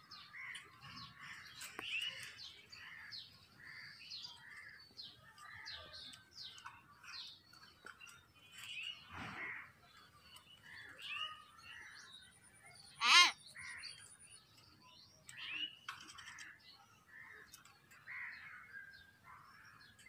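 Hill mynas calling: a steady run of short chirps and whistles, with one much louder call about two-thirds of the way through.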